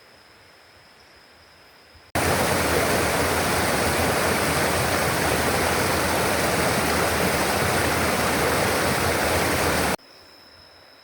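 A faint, steady, high insect drone. About two seconds in it cuts abruptly to loud rushing water, which stops just as suddenly about a second before the end, leaving the insect drone again.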